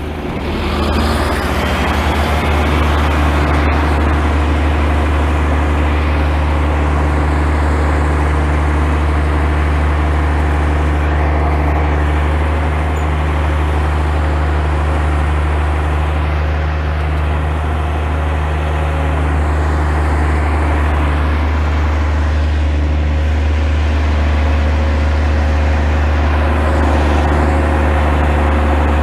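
Combine harvester running steadily while it harvests winter barley: a constant low diesel hum under the rushing noise of the cutting and threshing machinery, which swells about a second in.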